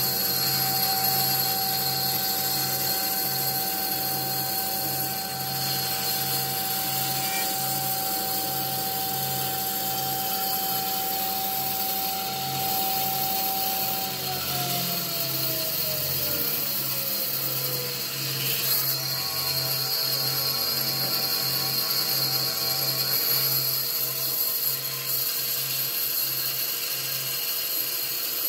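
Woodworking power tool running steadily, with a low pulse repeating a little faster than once a second and a strong high hiss. Its whine slides down in pitch about halfway through.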